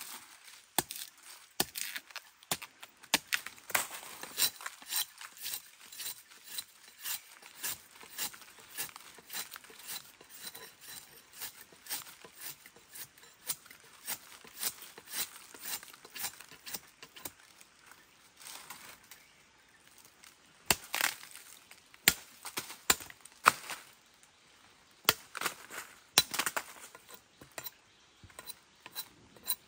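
Machete blade chopping into bamboo: a long run of sharp chops, about two a second, with a few heavier blows in the second half.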